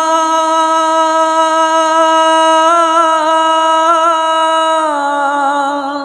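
A man singing one long held note of a Bangla Islamic gojol (naat), a single voice with no instruments. The note wavers in ornaments through the middle, dips a little in pitch near the end and fades away.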